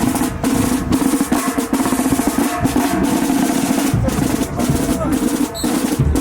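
Marching band drumline playing a marching cadence: fast, continuous snare drum rolls and patterns over drums, with heavier low bass drum hits about four and six seconds in.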